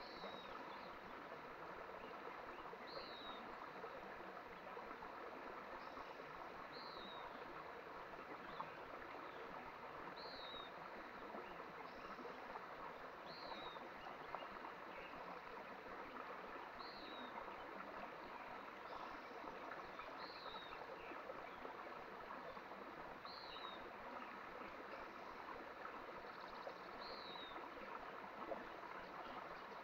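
Small mountain stream running steadily. Over it, a short, high chirp that falls in pitch repeats about every three and a half seconds.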